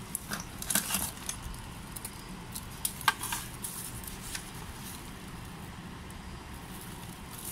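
Scattered light clicks and rustles of hands handling a thin copper foil strip and cylindrical lithium cells, with a small cluster of clicks near the start and again about three seconds in.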